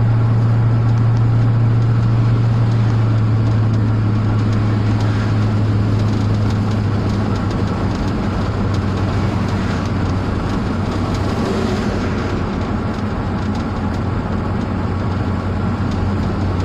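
Vehicle engine running, heard from inside the cab: a steady low hum under a constant rushing noise.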